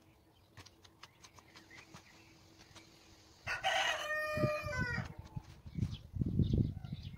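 A rooster crows once, about three and a half seconds in, a call of about a second and a half that drops in pitch at its end. Around it, a hand works flour and water into crumbly dough in an enamel bowl, heard as soft handling noises that grow louder from about four seconds on.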